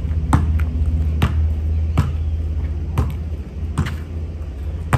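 Basketball being dribbled on a concrete driveway, sharp bounces about once a second, over a steady low rumble.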